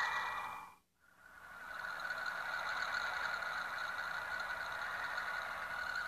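Sonified space-radio recordings played as planet sounds: the Saturn track fades out to a brief silence just under a second in, then the Uranus track fades in as a steady rushing hiss with a faint high held tone.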